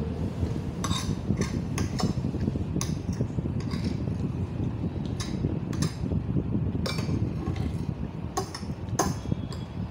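Metal forks clinking and scraping against ceramic plates as noodles are eaten, about a dozen short, irregular clinks over a steady low background rumble.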